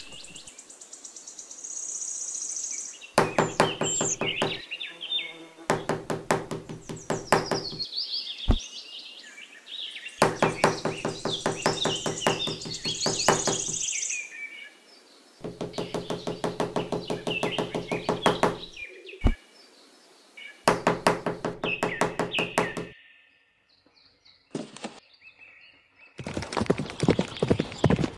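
Runs of fast, evenly spaced wooden knocking, each lasting a few seconds and coming about six times, with a couple of single sharp thuds between them. Small wooden posts are being worked into a miniature shed. Birds chirp in the background.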